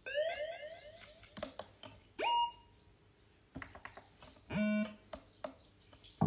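Sparse electronic synthesizer sounds played live: a quick run of rising chirps at the start, a short tone that glides up and holds its pitch about two seconds in, scattered clicks, and a short low buzzy tone later on.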